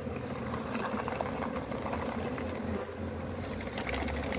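Honeybees buzzing over the open top bars of a hive: the steady hum of many bees, with a few light clicks and rustles.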